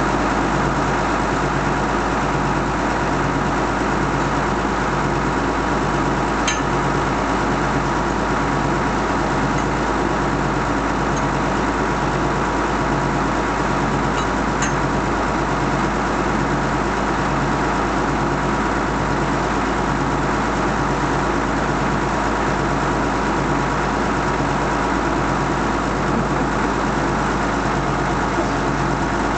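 A loader's engine idling steadily, with an even low throb about once a second. A couple of brief clicks come about six and fourteen seconds in.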